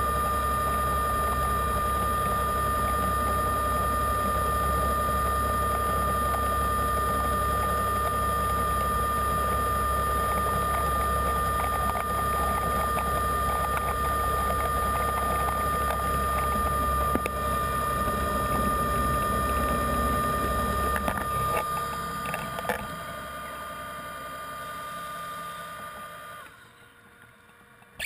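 A motor running steadily, heard underwater: a low hum with a constant high whine above it. The hum fades about three quarters of the way through, and near the end the sound drops away and the whine stops briefly.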